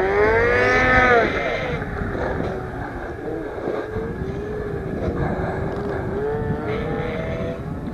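The two-stroke twin engine of a 2010 Ski-Doo Summit 800 snowmobile revs up and eases off in the first second. It then runs on, fainter, with a wavering pitch as the throttle goes on and off while it moves away.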